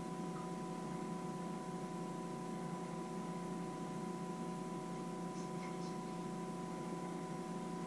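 Steady electrical hum made of several fixed tones over a low even hiss, with a few faint clinks about five and a half seconds in.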